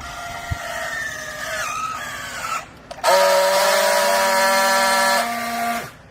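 Hydraulic clothes baler whining as it runs: a pitched whine that sags slightly for about two and a half seconds, then after a brief drop a louder, steady whine for nearly three seconds that starts and cuts off abruptly.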